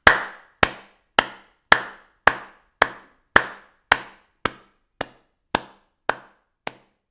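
A sharp knock repeating at an even pace, about two strokes a second, each a little fainter than the last and with a short ringing tail, like a single hit echoing away.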